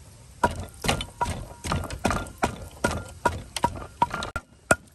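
A kitchen utensil striking wood in a steady rhythm, about two or three sharp knocks a second, each with a short ring, as food is prepared.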